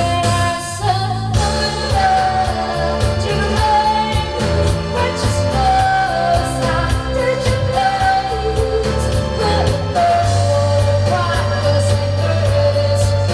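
Pop song: a singer holding and sliding between long notes over a steady bass line and drums.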